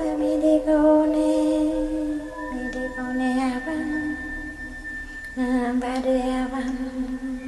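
A slow chant sung by a single voice, holding long notes that step down between a few pitches with a slight waver. A high steady tone sounds along with it for a few seconds in the middle.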